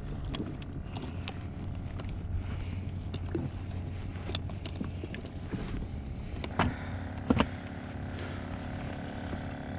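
Small outboard motor on an inflatable boat running steadily at low speed, a low even hum, with a few sharp knocks about two-thirds of the way through.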